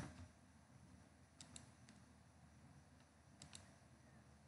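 Near-silent room tone with a few faint computer keyboard key presses, two quick pairs about two seconds apart, just after a louder knock at the very start.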